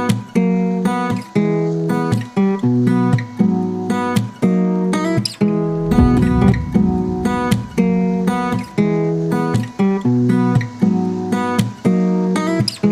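Background music: a strummed acoustic guitar in a steady rhythm, with a deep bass coming in about six seconds in.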